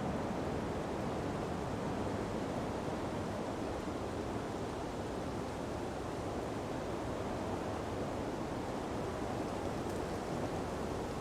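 Ocean breeze blowing steadily through palm trees: an even rushing with no distinct gusts or wave crashes.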